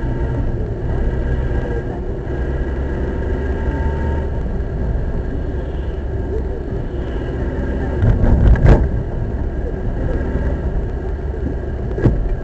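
Car driving along, a steady low rumble of engine and road noise heard from inside the cabin. A short run of louder knocks comes about eight seconds in, and one sharp knock near the end.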